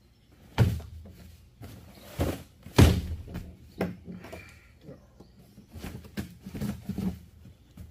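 Cardboard boxes of parts being handled and opened: a series of thumps and knocks, the loudest about three seconds in, with softer handling noises between them.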